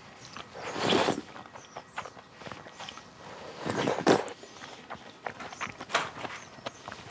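Close-up eating sounds of clam kalguksu noodle soup: two noisy slurps, about a second in and again about four seconds in, with small clicks of chewing and utensils in between.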